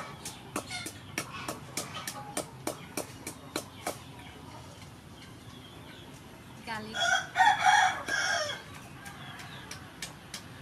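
Wooden pestle pounding chili in a wooden mortar, sharp knocks about three a second, stopping about four seconds in and starting again near the end. In the pause a rooster crows once, the loudest sound.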